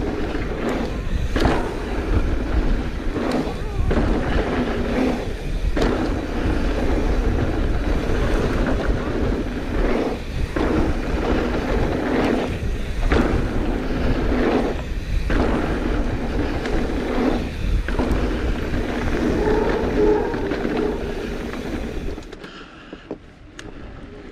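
Wind rushing over the microphone and mountain bike tyres rolling over a dirt trail during a fast ride, with a steady rumble broken by brief dips every second or two. It quiets about two seconds before the end as the bike slows.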